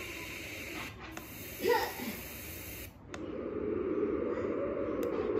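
SM-01 sound machine playing its built-in natural sounds, steady hiss-like tracks, stepping from one sound to the next with short breaks about a second in and again about three seconds in. The last sound is a lower, fuller rushing hiss. A brief gliding tone sounds just before the two-second mark.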